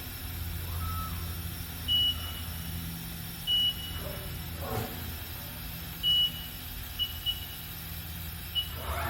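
Steady low electrical/machine hum with six short, high-pitched electronic beeps at irregular intervals, three longer and three quicker.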